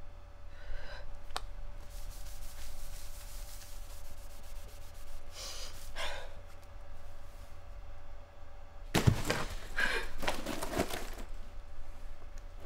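A cloth wiping a hard floor in short rubbing strokes over a steady low hum. The loudest rubbing comes in a cluster about nine to eleven seconds in.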